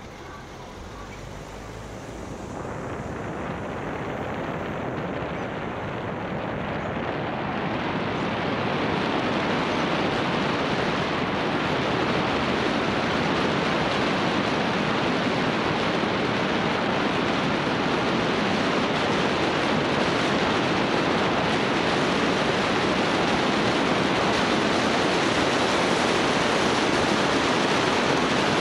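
Rushing wind and road noise that swells over about the first eight seconds and then holds steady and loud, as from a vehicle picking up speed on a motorway.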